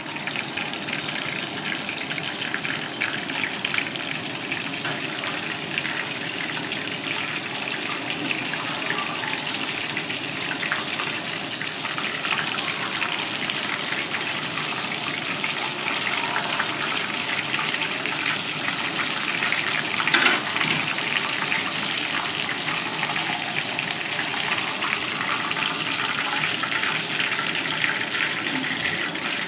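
Battered razorfish pieces deep-frying in a pan of hot oil: a steady, dense sizzle and crackle, with one brief louder flare about two-thirds of the way through.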